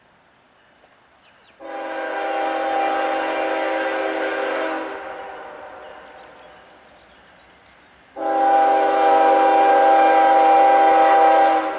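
Air horn of a Norfolk Southern GE ES44DC diesel locomotive sounding two long blasts, each about three and a half seconds, a steady multi-tone chord, the second blast louder as the train draws nearer. The long blasts at a whistle post are the warning for a grade crossing ahead.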